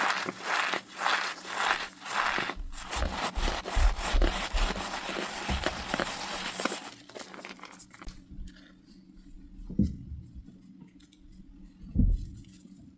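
Packed cornstarch being crushed and squeezed, giving dry squeaky crunches: first in a rhythm of about two squeezes a second, then a dense run of continuous crumbling. After about eight seconds it goes much quieter, with two soft knocks a couple of seconds apart.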